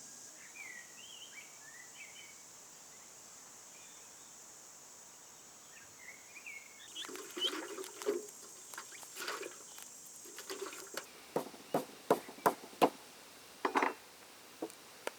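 Small birds chirping faintly a few times, then from about seven seconds in a run of irregular sharp knocks and clicks.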